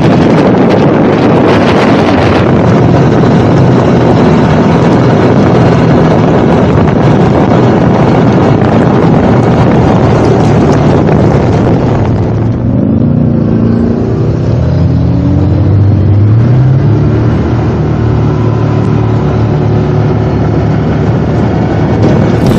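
ATV engine running under way, buried at first under heavy wind buffeting on the microphone; about halfway through the wind eases and the engine comes through, its pitch rising and falling as the machine speeds up and slows.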